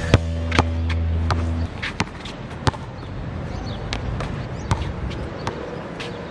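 A basketball bouncing on a hard court surface: sharp single bounces, spaced irregularly about once a second. At the start, background music ends on a held low note that cuts off about a second and a half in.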